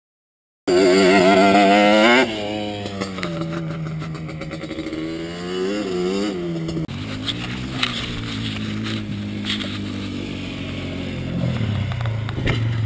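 ATV engine revving in several short clips cut together, its pitch wavering up and down as the throttle is worked. A moment of silence at the start, a sudden change to a lower, steadier engine note about halfway through, and the note rising again near the end.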